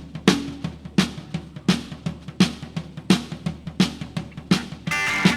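Live rock drum kit playing a steady beat alone, kick and snare with lighter hits between, about one strong hit every 0.7 seconds. Near the end the guitar comes in with sustained chords as the band starts the song.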